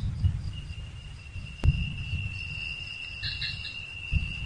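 Crickets chirring in one steady high trill, over an uneven low rumble with a sharp click about a second and a half in and a low thud near the end.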